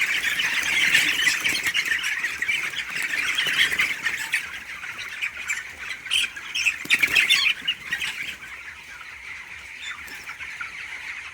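A flock of young chickens peeping and cheeping all at once, a dense chatter of high chirps; it thins out and quietens for the last few seconds.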